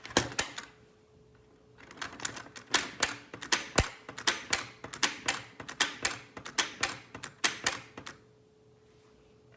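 Clockwork mechanism of a vintage Minnie Mouse wind-up toy clicking as it is worked by its key. There is a brief run of sharp clicks at the start, then a steady series of about three clicks a second from about two seconds in until about eight seconds.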